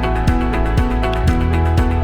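Background music with a steady beat of about two pulses a second over held tones.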